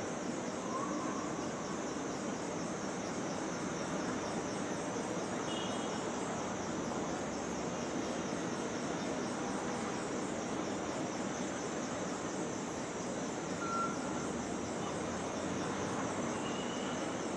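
Steady city street ambience: a continuous wash of traffic and crowd noise, with a few short, faint tones scattered through it.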